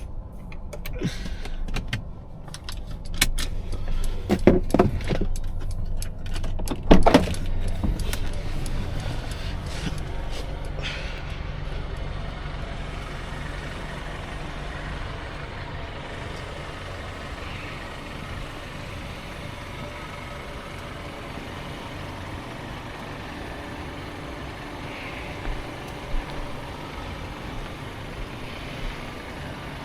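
Parked twin-charged Mercedes idling with a steady low hum. In the first dozen seconds there is a run of clicks and knocks, the loudest about seven seconds in.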